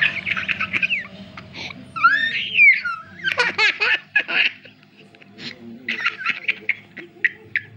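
A young child laughing in repeated short, high-pitched giggles and squeals.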